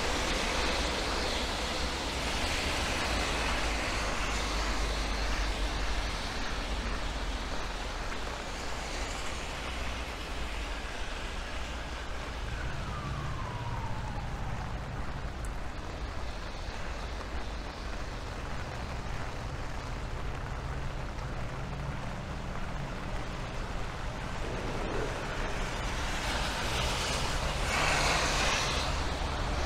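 Steady rain on a city street with road traffic: a vehicle's low engine hum comes in about halfway, a single tone glides downward for a few seconds, and near the end a vehicle's wet tyre hiss swells loudly as it passes.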